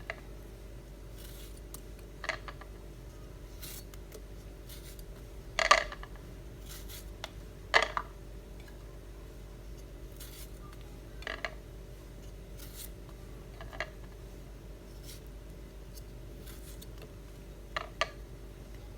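Scattered short clicks and knocks of kitchen utensils and ingredients being handled during papaya salad preparation, over a steady low hum. Two louder knocks come about six and eight seconds in.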